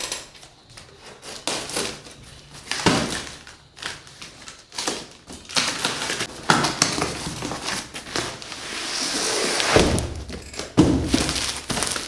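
A cardboard package being opened and handled: scattered knocks and thuds with scraping and rustling, and a longer hiss around nine seconds in.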